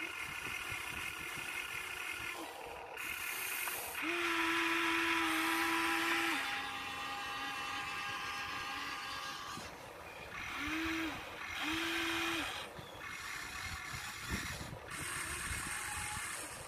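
Electric gear motors of a Huina 1593 remote-control excavator whirring as the cab swings and the boom and arm move. The whirring comes in short runs that start and stop, each a steady hum with a higher gear whine, the longest about four seconds in and two brief ones around eleven seconds.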